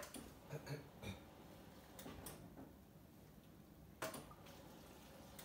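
Refrigerator door water dispenser filling a plastic shaker cup: quiet clicks and knocks of the lever and cup against the dispenser, the sharpest about four seconds in, with faint water running.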